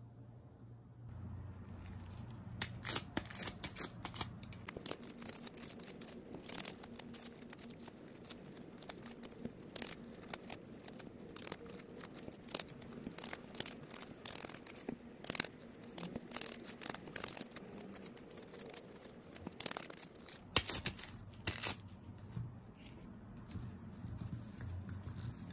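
Sticky tape pressed onto silicone resin molds and peeled off again to lift dust, giving quick irregular crackles and ticks that start about a second in. A few louder knocks come around twenty seconds in as the molds are handled.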